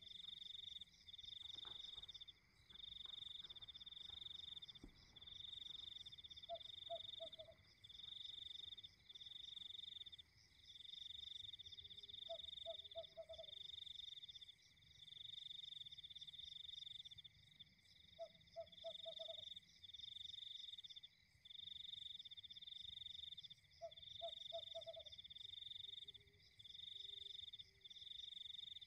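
Faint night chorus: a frog calling a short run of four or five quick croaks about every six seconds, over insects trilling steadily in high-pitched bursts of about a second each.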